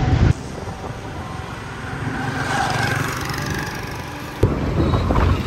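Wind rumbling on the microphone of a moving bicycle, cut off abruptly just after the start to quieter road traffic, with a motorbike engine swelling and fading. The wind rumble returns abruptly about four and a half seconds in.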